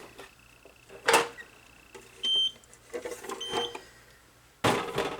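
Two short, high electronic beeps, one a little over two seconds in and a fainter one about a second later, among brief noisy handling sounds, with the loudest, longest one near the end.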